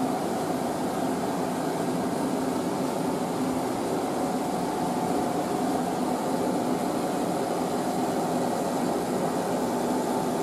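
Steady mechanical hum of machinery running, with a constant low tone and a higher tone held above it.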